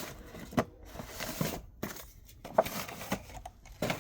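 Handling noise as firework packages are moved and set down: irregular light knocks, clicks and rustles of cardboard and plastic wrapping.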